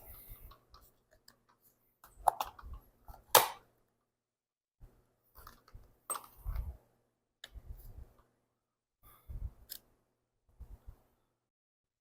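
Scattered clicks and knocks of hand tools and plastic engine parts being handled while the air filter housing of a small two-stroke engine is taken apart, the sharpest click about three and a half seconds in.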